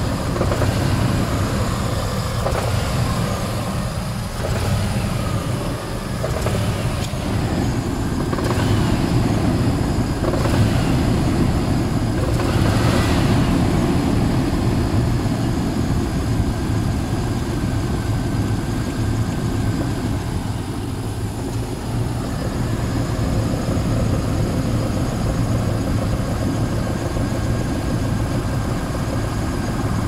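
Range Rover P38's 4.6-litre V8 running with a knock from inside the engine, heard up close in the engine bay; the owner suspects big-end bearing or piston ring failure, with the engine also losing power and misfiring.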